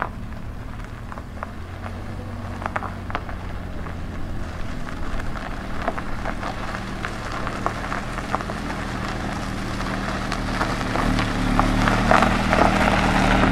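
Scattered light clicks and clatter of plastic toys being handled, over a steady low hum, growing louder and busier near the end.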